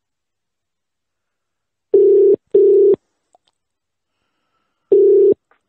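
Telephone ringback tone of an outgoing call ringing out: a low double-ring beep, two short beeps close together about two seconds in, then after a two-second pause one more beep near the end.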